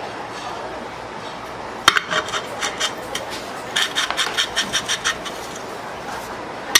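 Quick runs of sharp strokes from a hand tool working on a part, starting about two seconds in and coming several a second in bursts, over a steady workshop background noise.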